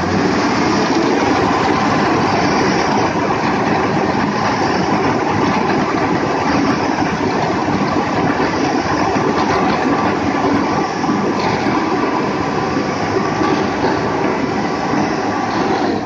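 Hino concrete mixer truck's diesel engine revving up and held at high revs to spin the drum and discharge concrete: a loud, steady rumble that comes in suddenly with a quick rising rev.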